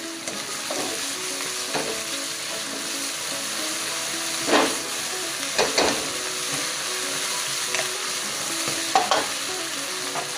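Chicken, onions and black beans in oyster sauce sizzling in a hot nonstick wok while a slotted spatula stirs them. The sizzle is steady, with a few louder scrapes of the spatula on the pan around the middle and near the end.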